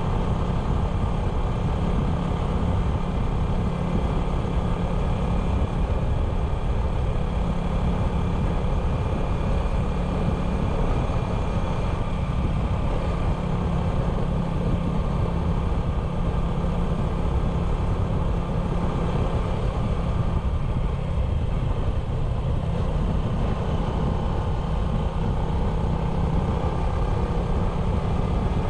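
A 97cc motorcycle running at a steady cruising speed on the road, its engine note and a low rumble holding even throughout.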